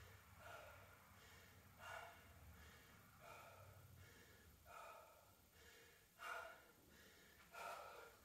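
Faint, heavy breathing from a woman winded after a hard cardio interval, one breath about every second.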